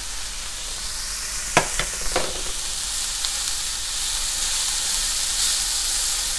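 Chopped mixed vegetables (cabbage, carrot, bell peppers, broccoli) sizzling in oil in a frying pan while a spatula stirs them, with a few sharp knocks about one and a half to two seconds in.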